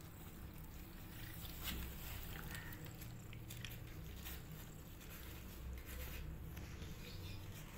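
Mother cat licking her newborn kittens forcefully: soft, wet licking and mouth sounds with scattered small clicks, over a low steady rumble.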